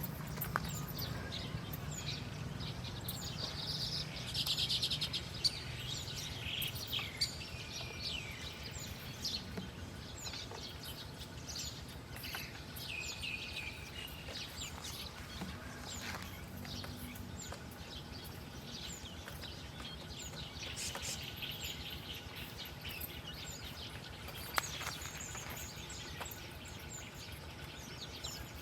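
Small birds chirping and calling: many short, high chirps scattered throughout, with a buzzy trill about four seconds in, over steady background noise.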